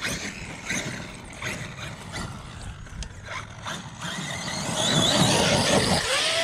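Electric 1/8-scale RC truck, a Traxxas Sledge, driving over dirt: tyres crunching and clattering on the ground, getting louder about two-thirds of the way in. Near the end the motor's whine rises and falls briefly.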